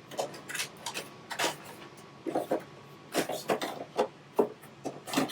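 Rummaging through a cupboard: irregular knocks, clicks and rustles of items being moved about.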